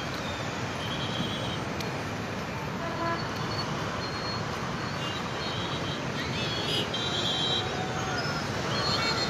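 Steady road traffic noise with a few brief, high horn toots scattered through it.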